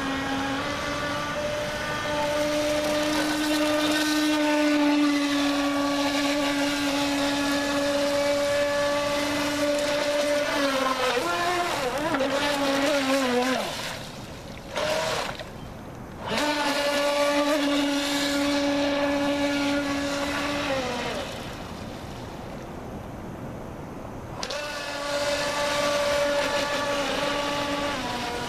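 Pro Boat Shockwave 26 RC speedboat's brushless motor whining at speed on the water. A little over ten seconds in the pitch falls as it throttles back and the sound nearly stops for about two seconds, then it whines back up; it eases off again around twenty seconds in and comes back up near the end.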